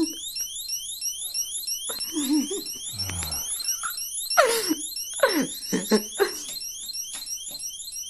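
Household electronic alarm sounding continuously as a rapidly repeating high rising chirp, about three a second, that has gone off for no apparent reason. A few short falling voice sounds break in about halfway through.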